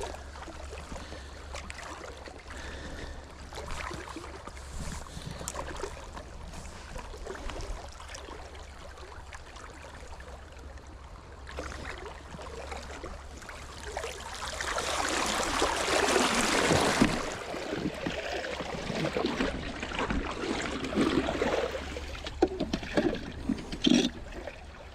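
River water flowing and trickling around an angler standing in the current, with scattered small splashes. About halfway through, a louder rush of splashing water lasts about three seconds.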